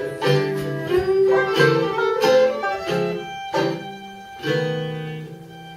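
Acoustic string band playing the instrumental close of a song: a run of plucked guitar notes, then a final chord about four and a half seconds in that is left to ring.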